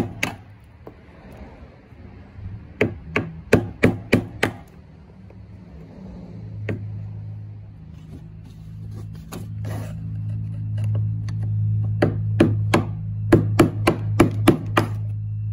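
Hammer blows on a flathead screwdriver, knocking at the rusted metal ring that seals the fuel pump into a gas tank. The blows come in quick runs of several, about three a second, with single knocks between. A steady low hum comes in about halfway and grows louder.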